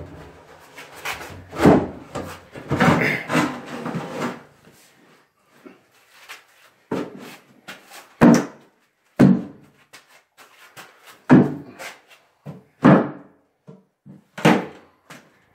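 Irregular thumps and clunks, like equipment being handled and set down, about a dozen spread through the stretch with a quiet gap about five seconds in.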